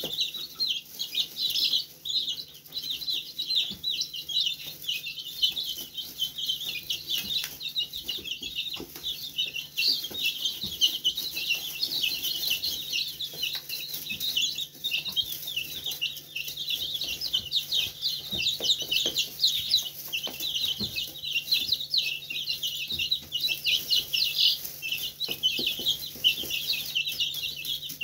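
A flock of young chicks, a few weeks old and half-feathered, peeping nonstop: many short, high chirps overlapping one another.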